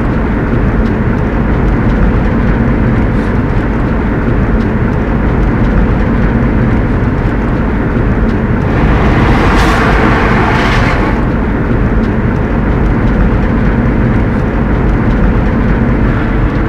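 Steady road and engine noise inside the cab of a moving van, heavy in the low end. Around the middle a louder rush of hiss swells and fades over a few seconds.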